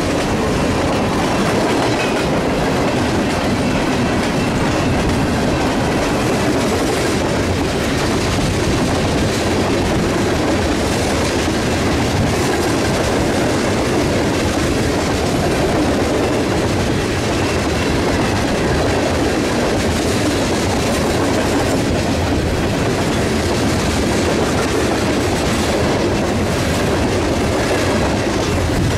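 Freight cars rolling past at speed close by: a steady, loud rumble and rattle of steel wheels on rail, with quick wheel clacks running through it.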